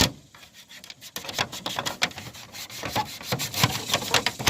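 Toothbrush bristles scrubbing a dirty air conditioner unit in quick back-and-forth strokes, quieter for the first second and then brisk and steady.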